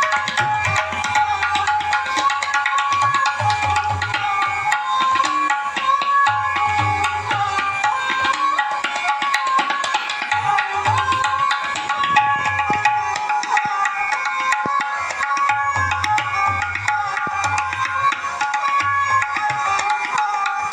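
A song with a steady low drum beat played through an 8-inch Award full-range speaker, picked up by the microphone in the room.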